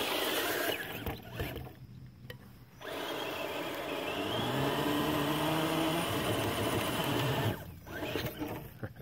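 Axial AX10 Deadbolt RC crawler's 20-turn brushed motor and metal-geared transmission whining as it drives, easing off briefly about two seconds in, then pitching up and down with the throttle.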